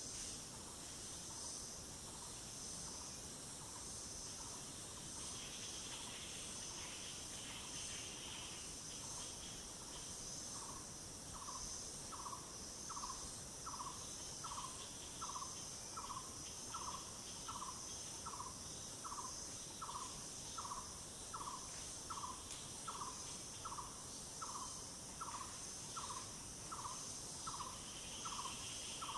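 Forest insect chorus, a steady high-pitched buzz and trill. Over it an animal gives a short call about one and a half times a second, faint at first and plainer from about ten seconds in.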